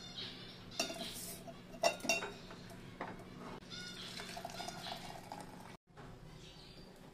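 Metal kitchen utensils clinking and scraping against a steel vessel, with a few sharp clinks between about one and three seconds in, as jaggery dissolved in water is strained.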